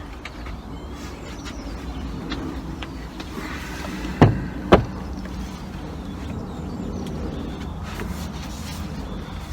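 Steady low rumble, with two sharp clicks about half a second apart a little over four seconds in.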